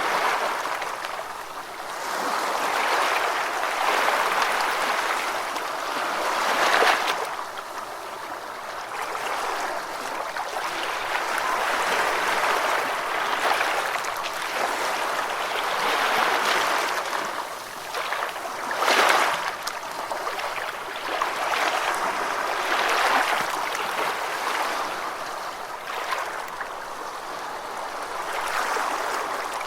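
Gentle ocean waves washing onto a beach: a steady hiss of surf that swells and eases every few seconds, with two sharper splashes of breaking water.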